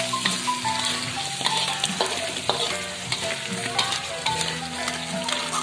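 Crabs and spice paste sizzling in a hot wok, with water just added, while a metal spatula stirs and scrapes irregularly against the pan.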